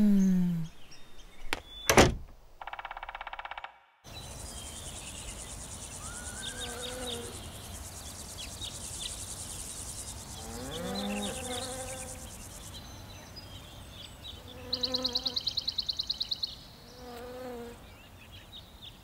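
Cartoon summer-meadow ambience of insects buzzing and chirping, with rapid chirping trills near the end. It is preceded in the opening seconds by a falling pitched sound effect, a sharp knock that is the loudest sound, a short buzz and a moment of silence.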